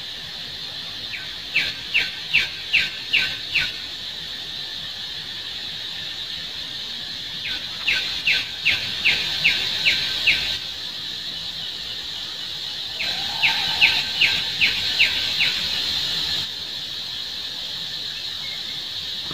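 A bird calling in three runs of short, sharp, falling notes, about two and a half a second, over a steady high buzz of insects.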